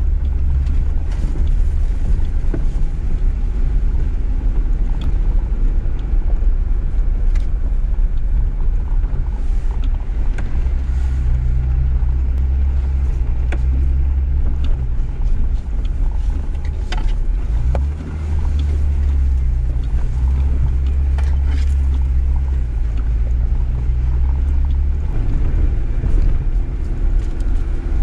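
Jeep Gladiator Rubicon driving slowly over a rough dirt trail: a steady low engine and drivetrain rumble that swells at times, with scattered small knocks and rattles, and a brief lull about two-thirds of the way through.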